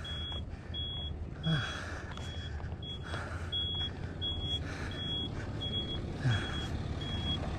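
Vehicle reversing beeper sounding a steady, evenly spaced high beep about one and a half times a second, over the low rumble of a running engine.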